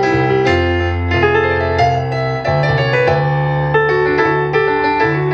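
Stage keyboard with a piano sound, played as chords over a moving left-hand bass line in an instrumental passage.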